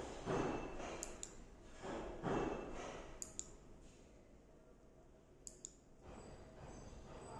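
Pairs of sharp, short clicks, repeating roughly every two seconds, between softer swelling sounds.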